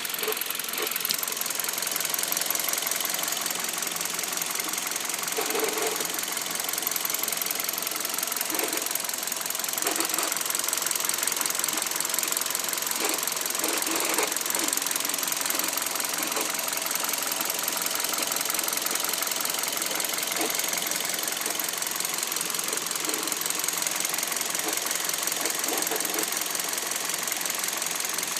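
Hyundai Solaris engine running steadily with a fast, even ticking throughout. This is the extraneous noise the owner is trying to identify.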